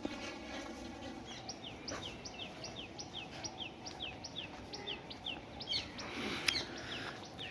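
A bird calling over and over in short, high, falling chirps, about three a second.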